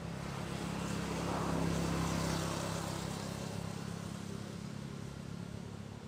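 A motor vehicle's engine running steadily, growing louder about a second in and fading away again, as of a vehicle passing by.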